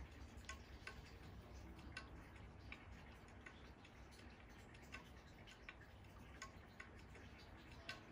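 Near silence: faint, sharp ticks at irregular spacing, roughly one a second, over a low steady hum.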